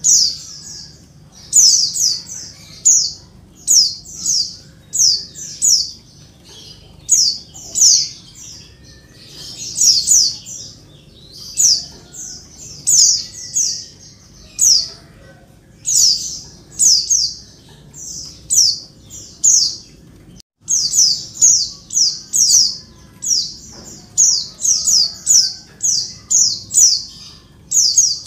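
Female white-eye (pleci) calling noisily: short, high, downward-sweeping calls in quick groups of two to four, about once or twice a second, with a brief break about two-thirds through.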